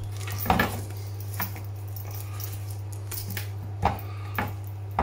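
Hands twisting the wing off a plucked partridge at the joint and handling the bird: a few short crackles and rustles of joint and feathers, the loudest about half a second in, over a steady low hum.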